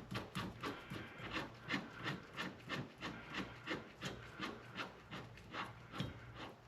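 Hand ratchet wrench working quickly, a steady series of short rasping clicks at about three strokes a second, as the wheel hub's mounting bolts are run in.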